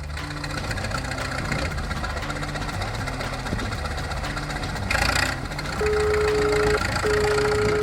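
Cartoon vehicle engine running steadily under low stepped background notes, with a short noisy burst about five seconds in and two long steady tones near the end.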